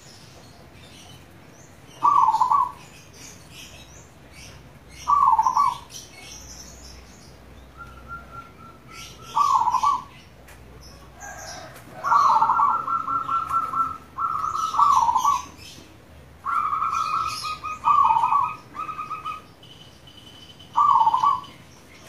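Zebra dove cooing: short coos repeat about every three seconds, and about halfway through come longer runs of rapid pulsed notes. Small birds chirp faintly and high-pitched in the background.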